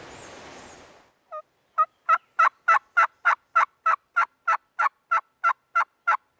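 A long series of turkey yelps, evenly spaced at about three a second, starting just over a second in, each yelp sharp and short.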